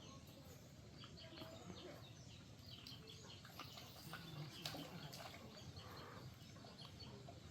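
Birds chirping faintly, with many short, scattered chirps and no steady rhythm.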